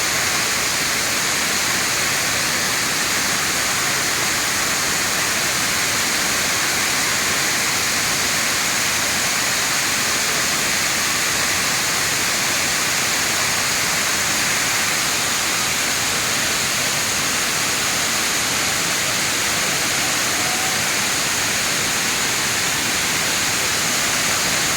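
Waterfall: water rushing steadily as one constant hiss, with no breaks or changes.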